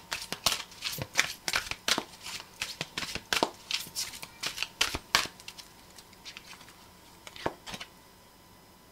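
A deck of tarot cards being shuffled: quick flicking clicks of the cards for about five seconds, then a few scattered card snaps that die away near the end.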